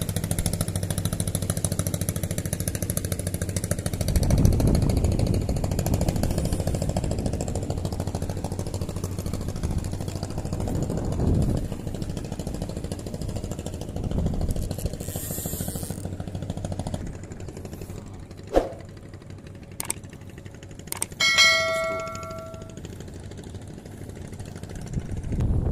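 A small engine running steadily with wind on the microphone, easing off after about 17 seconds. Then come a few sharp clicks and a short metallic ding that rings briefly about 21 seconds in.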